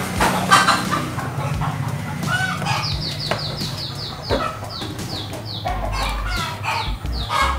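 Chickens clucking, then a rapid run of short, high, falling peeps starting about three seconds in, with scattered clicks and knocks from handling tools and wires on the bench.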